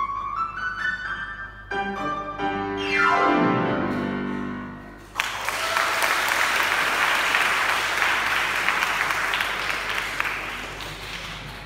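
Fazioli grand piano playing the last bars of a piece: a fast run down the keyboard into a low ending that rings out and fades. Then applause breaks out suddenly, about halfway through, and tapers off near the end.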